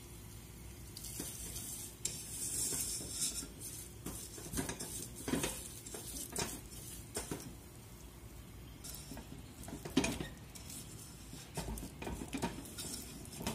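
Silicone spatula scraping and knocking irregularly around a stainless steel saucepan as lumpy, crystallized sugar is stirred over low heat, melting into caramel. A soft hiss from the hot sugar between about one and three seconds in.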